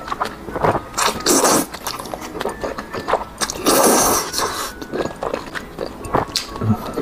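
Thick saucy fried rice noodles slurped into the mouth in wet sucking pulls, twice in the first second and a half and once more for about a second near the middle. Between the slurps there is chewing with small wet clicks and lip smacks.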